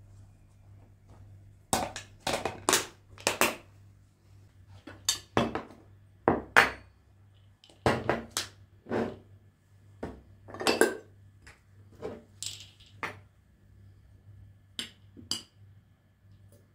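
A string of about fifteen irregular sharp clinks and knocks from hard objects being handled and set down, some ringing briefly.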